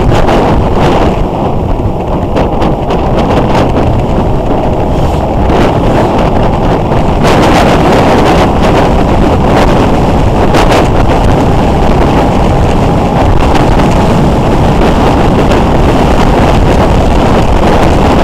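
Wind buffeting the microphone of a camera on a moving motorcycle: a loud, steady rush of wind and road noise that grows a little louder about seven seconds in.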